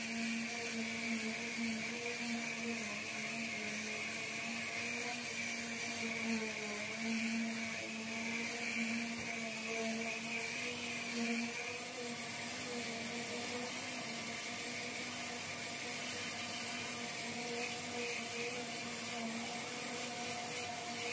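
Random orbital sander running steadily on a car fender, a steady hum with a higher whine above it.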